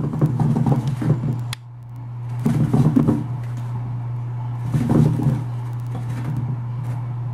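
Chinchilla rolling in bath dust inside a plastic dust-bath house: bursts of scrabbling and rustling against the plastic, each about a second long and coming three times, over a steady low hum.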